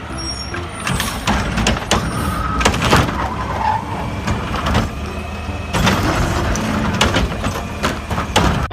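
Plastic toy vehicles being handled and set down: an irregular string of clicks, knocks and scrapes of plastic.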